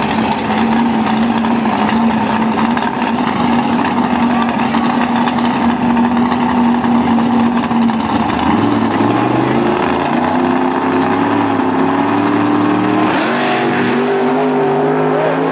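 Drag car engine idling steadily at the starting line, then revving from about halfway through, its pitch rising and stepping higher toward the end as it readies to launch.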